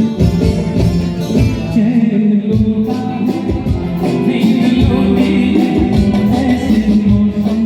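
A song with a singing voice over instrumental accompaniment.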